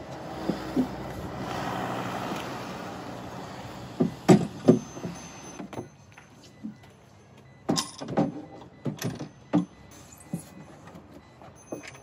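Hollow stitch-and-glue plywood raft modules knocking and bumping against each other and the car's boot as they are shoved in and pulled back out. A rustling scrape comes first, then a cluster of sharp knocks about four seconds in and another run of knocks about eight to nine and a half seconds in.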